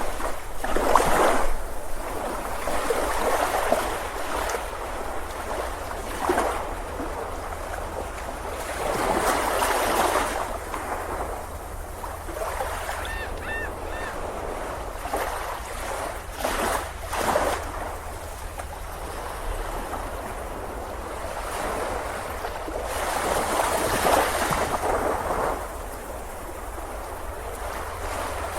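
Ocean waves breaking and washing onto a beach, the surf swelling and fading every few seconds.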